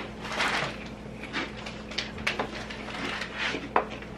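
Crunchy chili-and-lime snack mix of corn nuts and broad beans being chewed: a run of irregular crisp crunches.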